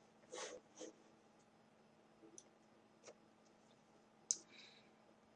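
Near silence broken by a few faint computer mouse clicks, the sharpest near the end, with a short soft noise shortly after the start.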